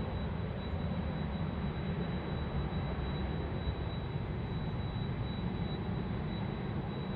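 Airbus A330-200 jet airliner climbing out after takeoff, its engines giving a steady low rumble that slowly fades as it moves away.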